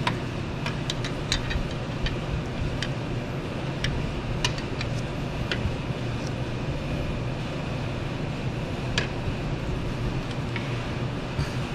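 Steady low background hum, with a few light metallic clicks and taps as a drive-belt tensioner bar and 14 mm socket are worked onto the belt tensioner.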